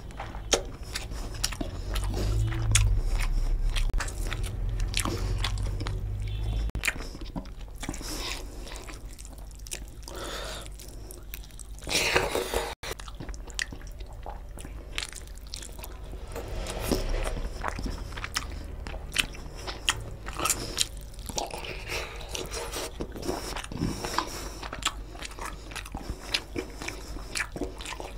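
Close-miked chewing and wet mouth smacking of a person eating rice and egg curry by hand, with many small sharp clicks. A low rumble sits under the chewing from about two to seven seconds in.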